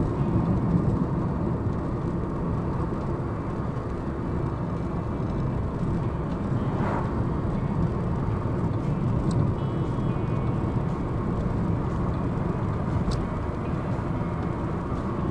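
Car on the move, with steady engine and road noise picked up by a dashcam's built-in microphone inside the cabin. Faint light ticks come through in the second half.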